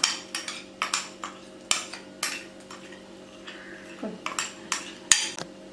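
Spoon clinking and scraping irregularly against a bowl while the last of the activated yeast mixture is emptied into the flour.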